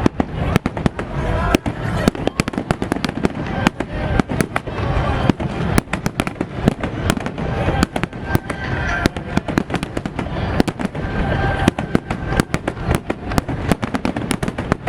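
Fireworks display going off: a dense, irregular run of sharp bangs and crackles, several a second, over a continuous low rumble of bursts.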